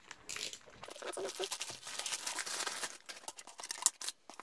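Plastic poly mailer bag crinkling and rustling as it is handled and pulled open, with irregular crackles and a sharp click near the end.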